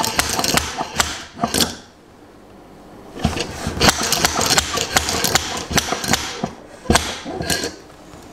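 Motorcycle fork tube worked in and out as a slide hammer, the washer knocking the new fork bushing down into the outer tube: rapid metallic knocking, several strokes a second, in two runs with a pause of about a second and a half near two seconds in.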